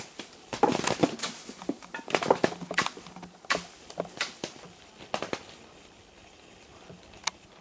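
Cherry plums falling from a shaken tree and striking plastic sheeting below in quick, irregular taps, thick for the first five seconds or so, then thinning to a few stray hits.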